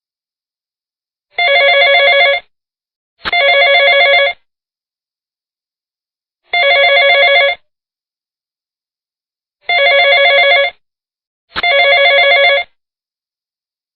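Telephone ringing: five rings of about a second each, each with a fast trill, separated by silent pauses of one to two seconds.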